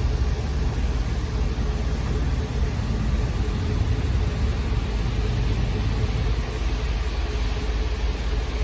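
Steady low rumble of a running vehicle engine, with a faint steady hum above it.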